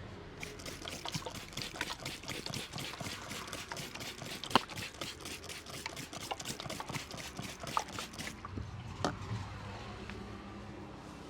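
Hands working on a head during an Indian head massage (champi): a fast run of crisp taps, about five a second, with one sharper crack in the middle, stopping about eight seconds in.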